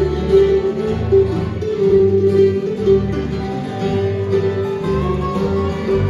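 Gospel bluegrass band playing live: strummed acoustic guitars and mandolin, with a steady melody line running through and low bass notes changing in time.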